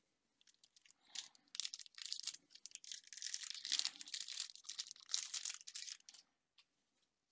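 Foil wrapper of a Magic: The Gathering set booster pack being torn open and crinkled. A dry crackling rustle starts about a second in and stops about six seconds in.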